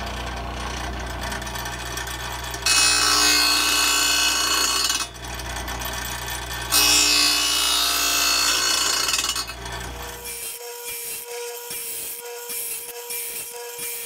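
Belsaw 10452 sharpener's gumming wheel grinding the gullets of a large circular saw blade. The motor hums steadily, and the wheel bites into the steel twice, each time for two to three seconds with a louder hiss. In the last few seconds it grinds more lightly with a fast pulsing vibration, which the operator puts down to a support pin vibrating loose.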